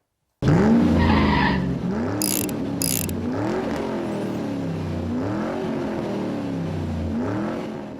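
Car engine accelerating hard through the gears, its pitch climbing and dropping back at each of about five shifts, with two short high screeches about two to three seconds in.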